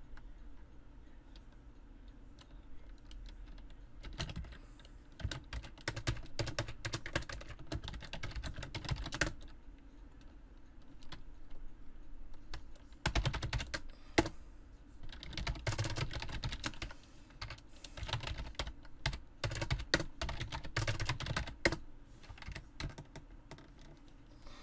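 Typing on a computer keyboard: quick runs of keystrokes, with a longer pause about ten seconds in and a quieter stretch at the start.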